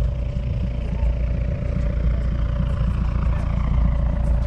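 Car engine idling steadily, a low even rumble with a faint steady whine above it.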